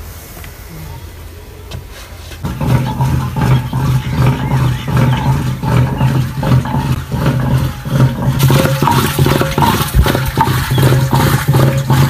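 Traditional rope-pulled wooden churning stick (madhani) spinning back and forth in a clay pot of yogurt, churning it to bring out butter. A rhythmic, growling churning sound with a steady low hum starts about two and a half seconds in.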